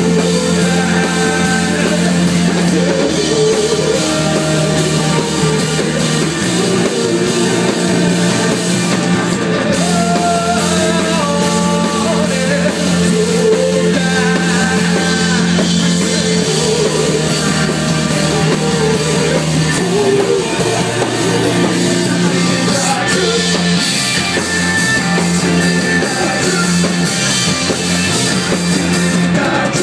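Live rock band playing loudly: electric guitars and drums with a singing voice.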